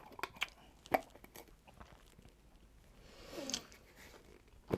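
A person chewing a bite of fresh fruit coated in Kool-Aid powder: soft, wet crunches and mouth clicks scattered through, with a short hum about three and a half seconds in.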